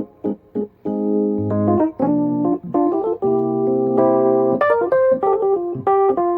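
Background instrumental music on a keyboard: held organ-like chords about a second long alternating with shorter melody notes.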